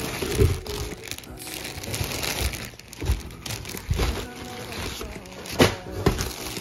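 Plastic bag crinkling and rustling, with cardboard scraping, as a plastic-wrapped hoodie is handled and pulled out of a cardboard shipping box. There is a sharp knock about five and a half seconds in.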